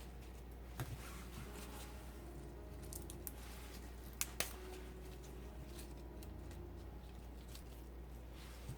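Celery stalks being trimmed by hand: faint handling sounds with a few crisp clicks and snaps, two sharp ones close together about four seconds in, over a steady low hum.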